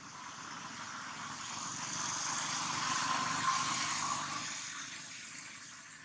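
A vehicle passing by: a broad rushing sound that swells to a peak about halfway through, then fades away.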